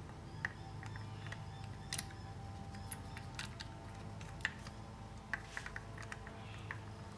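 Small, irregular clicks and taps of a motorcycle carburettor's slide and rubber diaphragm being handled and seated back into the carburettor body, about a dozen over several seconds, over a faint steady low hum.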